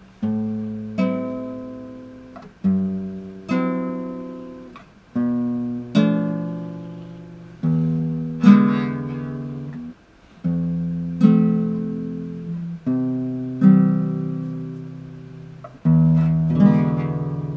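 Nylon-string classical guitar strummed slowly: single chords, mostly in pairs, each left to ring out and fade before the next.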